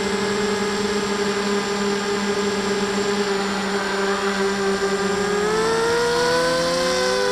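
Motor and propeller of an FPV radio-controlled model aircraft, heard from the onboard camera: a steady whine, joined about five seconds in by a second tone that rises and then falls in pitch.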